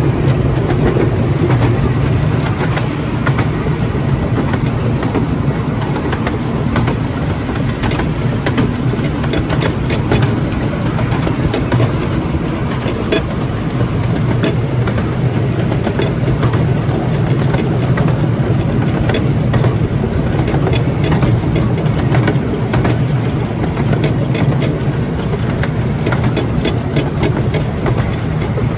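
Narrow-gauge steam train heard from an open carriage while running: a continuous rumble from wheels on the track, with frequent irregular sharp clicks.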